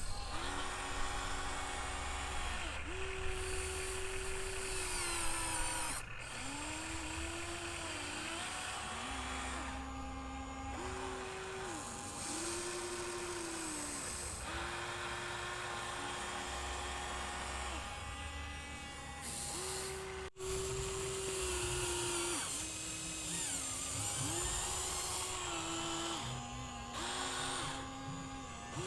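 Huina 1594 RC excavator's electric motors whining as the boom, arm and bucket work, the pitch dipping and rising again every second or two as functions start, stop and take load.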